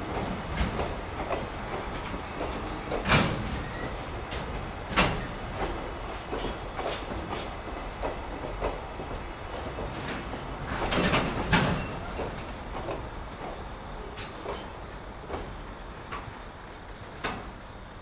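Train wheels clattering over rail joints and points: a steady rumble with irregular sharp clunks, a cluster of them around the middle, growing gradually fainter.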